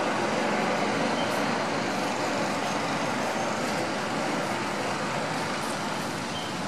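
Steady, even hum of road traffic.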